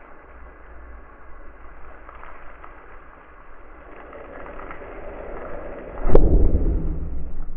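A steel 55-gallon drum imploding: faint ticking, then about six seconds in one loud bang as the drum collapses, followed by a short low crumpling rumble. The steam sealed inside has condensed, and atmospheric pressure crushes the drum.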